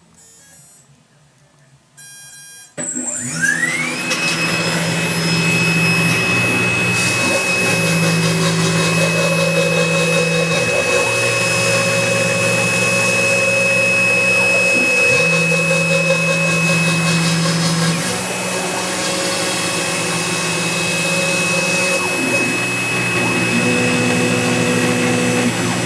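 Mini CNC mill's spindle motor starting about three seconds in, its whine rising quickly to a steady high pitch. Under it the stepper motors hum, their pitch changing in steps as the axes move through the cutting job.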